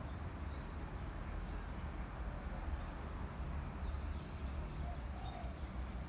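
Young fantail giving faint, short, high squeaks, a few scattered calls, over a steady low rumble.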